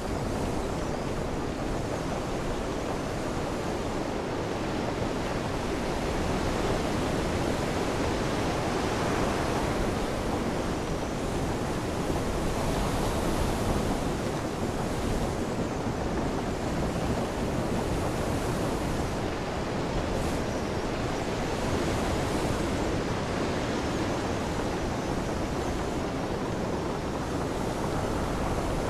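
Ocean waves and wind: a steady, even rush of surf with no distinct breaks, a little louder through the middle.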